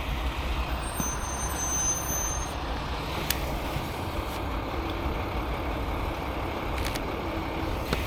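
Steady rumble and hiss of road traffic, with a thin high-pitched squeal lasting over a second from about a second in, and two sharp clicks.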